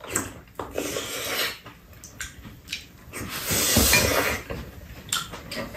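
Eating sounds: chopsticks and a metal spoon clicking against bowls and a pan several times, with a louder slurp from a spoonful of soup a little past halfway.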